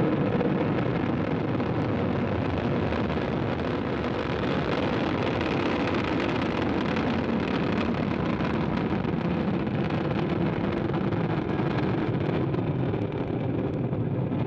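Ariane 5 ES rocket at liftoff, its Vulcain core engine and two solid rocket boosters firing together: a dense, steady roar of rushing noise that holds an even loudness.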